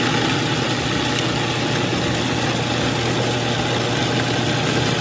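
Electric food processor running steadily, chopping fresh green herbs and garlic with olive oil into a paste: a constant motor hum with the whirr of the blades through the wet greens.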